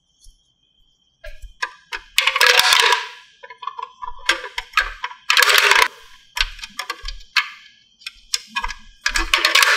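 Small plastic toy drink cans being loaded into the top of a plastic toy vending machine: light plastic clicks, then several loud clattering rattles as the cans drop into the machine's columns.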